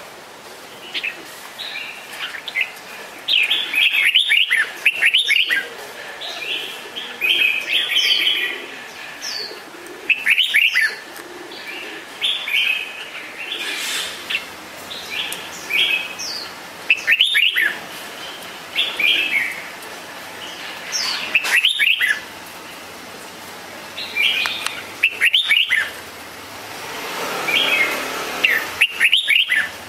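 Red-whiskered bulbul singing: loud, short whistled phrases with quick rising and falling notes, repeated every few seconds, with softer chirps in between.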